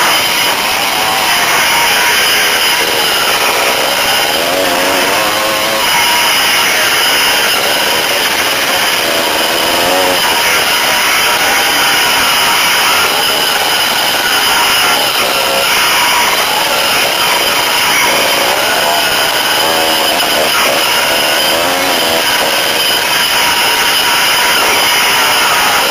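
Dirt bike engine heard from on board, its revs rising and falling again and again as the throttle opens and closes, over a steady noisy rush.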